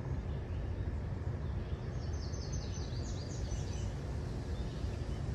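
Steady low rumble of a car driving on a paved road. About two seconds in, a bird sings a quick run of about eight falling notes, lasting under two seconds.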